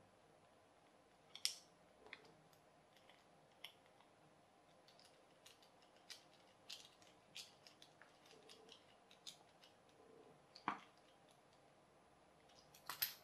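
Faint, scattered small clicks and ticks of a precision screwdriver working screws into a plastic gear casing, with a sharper knock about ten and a half seconds in and a quick cluster of clicks near the end.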